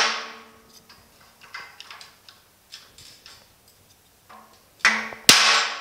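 Hammer striking a wooden block held on the sheet-metal lip of a 1950 Chevy truck's bumper splash apron, driving the lip down; each blow is a sharp knock followed by the steel panel ringing for about a second. The ringing of one blow dies away at the start, a few light knocks follow, then two more blows land near the end, the second louder.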